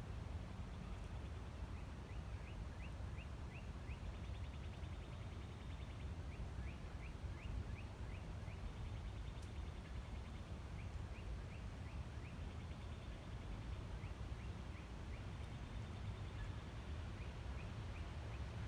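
Wind buffeting the microphone as a steady low rumble, while a bird sings short runs of five or six quick rising notes, repeated about every three to four seconds.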